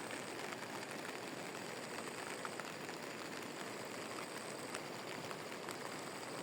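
Steady rain falling, an even hiss dotted with many small separate drop taps, some of them landing on a plastic sheet held over the phone.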